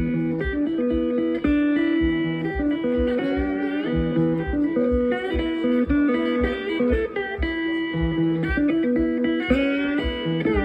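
Amplified cigar box guitar playing a bluesy instrumental riff with sliding notes, over a stomp box thumping a steady beat about twice a second.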